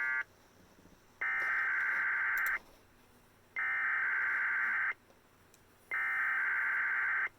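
Emergency Alert System (SAME) digital header on NOAA Weather Radio, announcing a required weekly test: the end of one burst at the very start, then three bursts of harsh, buzzy data tones, each about a second and a half long with about a second's pause between.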